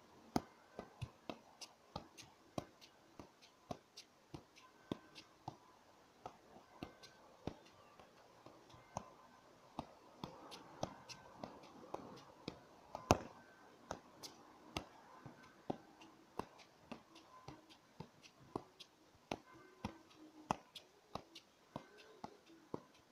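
A football being juggled, its touches off the feet and thighs giving short sharp taps about two a second, unevenly spaced. One touch about thirteen seconds in is louder than the rest.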